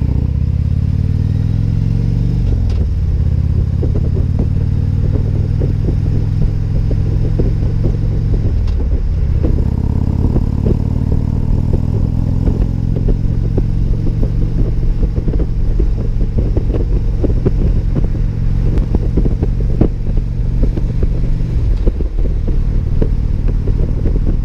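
Harley-Davidson Ultra Limited V-twin engine running under way, its note climbing as the bike accelerates and dropping sharply at upshifts about 3 and 9 seconds in, then holding steady at cruise before another drop near the end.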